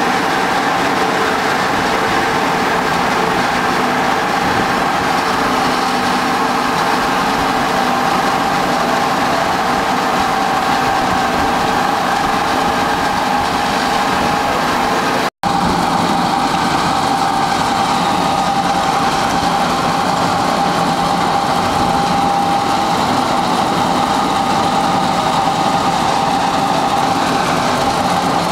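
Small animal-feed pellet production line running: electric motors, pellet mill and conveyors making a steady mechanical din with a constant whine over it. The sound drops out for an instant about halfway through.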